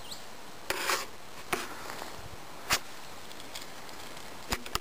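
Handling noise on a small handheld camera: a brief rub about a second in, then a few sharp clicks and taps spread through, over a steady hiss.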